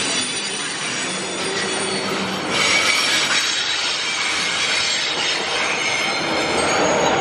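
Loaded freight train wagons, steel-product flatcars and then container flatcars, rolling past on a curve with their wheels squealing in several high steady tones over the rumble of the train. The squeal grows louder about two and a half seconds in.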